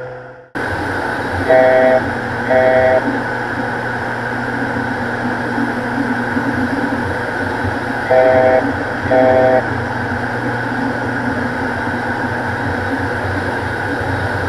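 Steady drone of a Beechcraft King Air's PT6A turboprop engines and airflow inside the cockpit. Two pairs of short electronic beeps sound over it, the first pair about a second and a half in and the second about eight seconds in.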